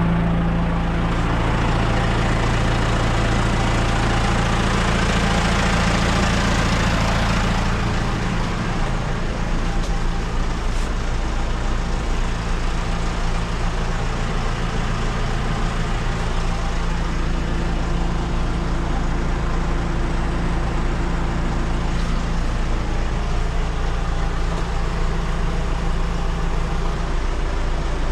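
Diesel engine of a JCB 4CX backhoe loader running steadily under varying load. It is harsher for the first several seconds, then eases off about eight seconds in, and shifts pitch again about halfway through.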